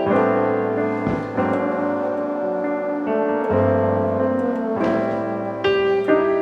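Background piano music, sustained chords changing every second or so.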